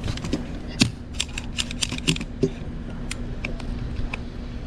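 Fuel pump nozzle being worked in a car's filler neck: a quick run of sharp plastic clicks, then a few scattered ones, over a steady low hum from the pump as fuel flows.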